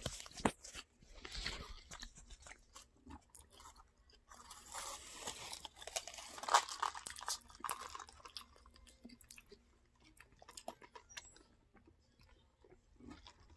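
A person chewing and crunching food close to the microphone, in irregular, fairly quiet bursts with short pauses between them.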